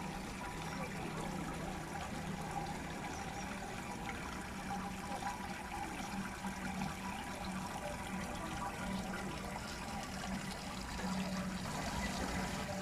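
Steady running water, an even splashing flow, with a low steady hum underneath.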